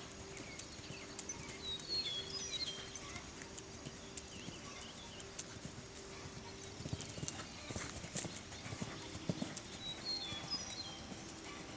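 Hoofbeats of a Westphalian/Thoroughbred gelding cantering on a sand arena: an uneven run of soft knocks.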